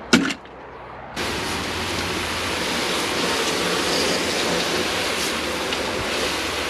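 A garden hose spray nozzle spraying water onto a wooden bench top: a steady hissing splatter that starts abruptly about a second in, after a brief knock at the very start.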